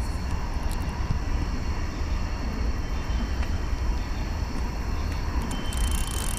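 Conventional fishing reel being cranked to bring in a hooked catfish, under a steady low rumble and hiss.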